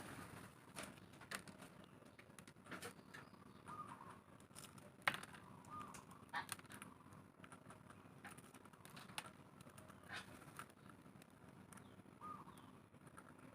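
Faint scattered clicks and taps of a sun conure's beak working at its food, with a few short soft chirps. The loudest sound is a single sharp click about five seconds in.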